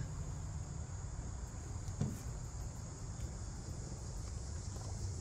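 Insects chirring steadily in a high, even band over a low steady rumble, with one faint short knock about two seconds in.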